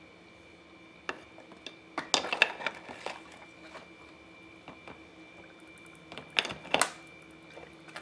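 Metal drill parts handled in a plastic tub of water: water sloshing and dripping, with sharp knocks and clatters as the parts are set down against each other and the tub, a cluster of them about two seconds in and two more near the end. A faint steady hum runs underneath.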